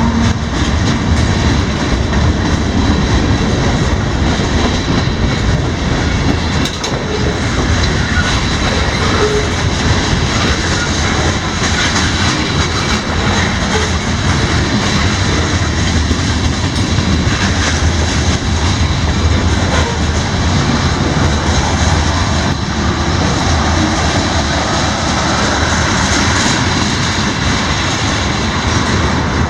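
CSX autorack freight train passing at speed: a steady, loud rush and rumble of rolling train noise that holds throughout.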